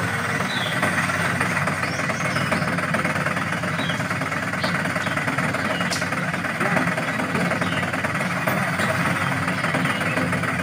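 Steady diesel-truck engine sound of a radio-controlled MAN dump truck under way, a continuous even running note with no revving.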